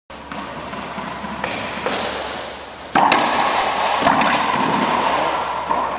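Racquetball knocks echoing in an enclosed court: a few sharp hits in the first seconds, a loud hit about three seconds in, then a quick cluster of knocks.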